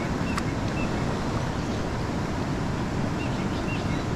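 Fast river water rushing and churning through rapids around a kayak, a loud steady wash, with a few faint short chirps and a single click about half a second in.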